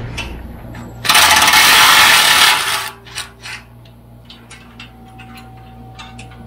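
Cordless driver spinning a socket on an exhaust mounting bolt in one loud burst of about two seconds, loosening the bolt of the stock muffler. After it comes a series of light metallic clicks and ticks.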